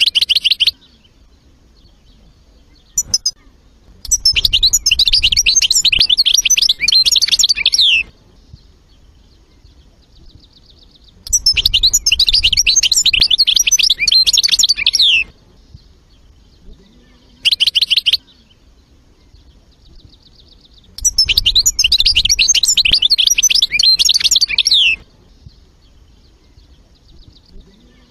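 European goldfinch singing: three long bouts of rapid, twittering song of about four seconds each, with short snatches of song between them.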